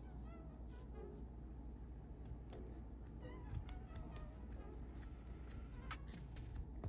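Scissors snipping through 7/8-inch polyester ribbon, trimming off its ends: a run of quiet, short snips and clicks, most of them after the first couple of seconds.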